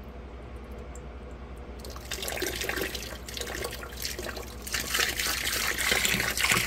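Muriatic acid pouring from a gallon jug into a plastic barrel of churning liquid: a splashing pour that starts about two seconds in and grows louder near the end.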